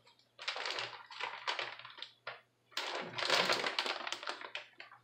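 Plastic crinkling and rustling in irregular bursts as it is handled, loudest in the middle.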